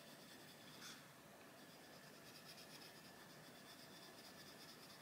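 Faint, steady scratching of a Posca coloured pencil shading on paper in short repeated strokes, with a light tap about a second in.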